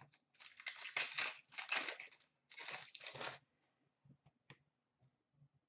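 Hockey card pack wrappers crinkling and tearing as a pack is handled and opened, in several rustling bursts over about three seconds, followed by a few light taps.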